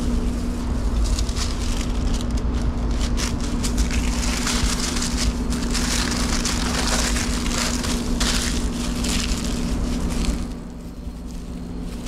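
Paper wrapping and thin plastic food-service gloves crinkling and rustling as a filled wrap is rolled up and wrapped by hand. The crinkling stops about ten seconds in, leaving a steady low machine hum.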